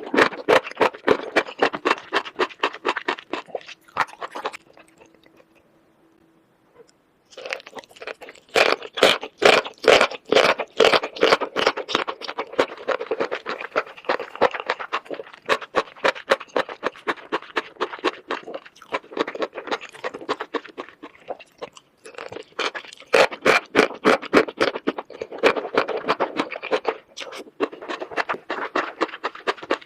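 Close-miked chewing of crunchy food: rapid runs of crisp crunches that pause for about three seconds a few seconds in, then resume.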